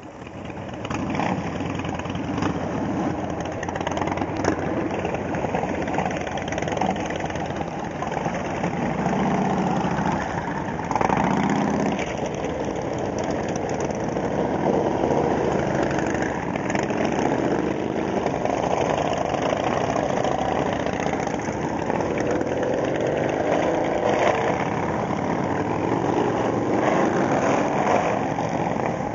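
A group of big cruiser and touring motorcycles, mostly Harley-Davidson V-twins, idling and pulling slowly past one after another. The engine sound swells about a second in, and its pitch rises and falls as the bikes move off.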